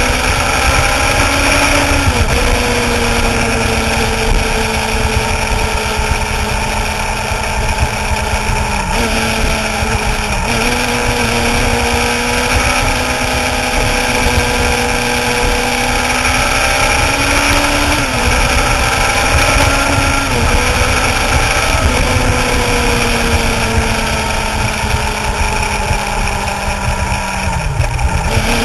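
Suzuki GSX-R sportbike's inline-four engine running at road speed. Its note dips sharply a few times and climbs back, over a steady rush of wind noise.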